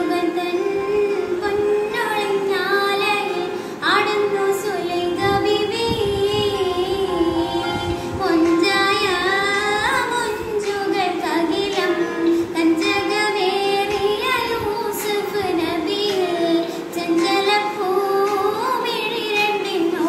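A girl singing a melodic song solo. One voice holds long notes that waver and glide, with few breaks.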